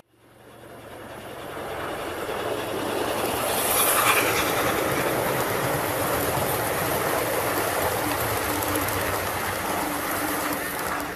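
An O gauge model train's coaches rolling past close by on garden track, wheels clattering over the rails. The sound builds as the train nears, peaks with a bright high-pitched rush about four seconds in, then settles into a steady rumble as the coaches pass.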